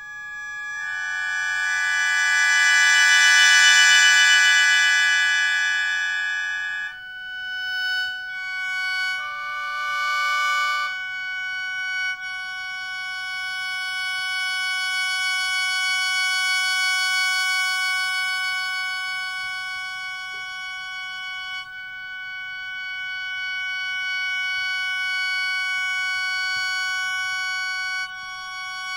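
Shō, the Japanese bamboo free-reed mouth organ, playing chords of several held tones that swell and fade. The chord changes a few times between about seven and twelve seconds in, then one chord is held for a long time.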